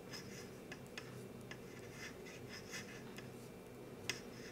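Knitting needles faintly clicking and ticking as knit stitches are worked, a scatter of soft ticks with one sharper click near the end.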